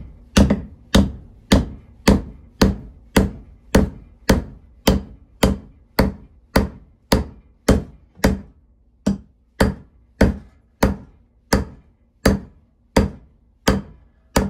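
Steady hammer blows seating a Kelly Perfect axe head onto its wooden handle to close a small gap: sharp knocks, about two a second, each with a short ring.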